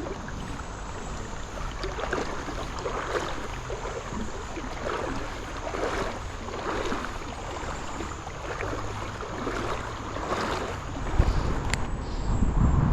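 Footsteps wading through a shallow creek, a soft swish of water about every 0.7 s, over the creek's steady flow. Wind buffets the microphone near the end.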